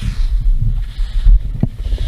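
Skis sliding and scraping over packed snow on a downhill run, with wind buffeting the microphone and one sharp knock about three quarters of the way through.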